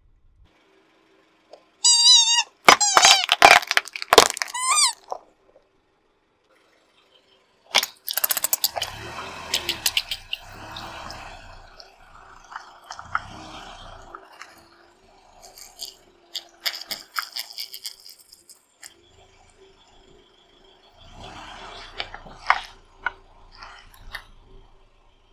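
Car tyre rolling slowly over small plastic drink bottles full of liquid: the plastic crackles and crunches as it gives way and the liquid squirts out, in two spells over a low rumble. Before that, a loud pitched squeal that wavers up and down lasts about three seconds.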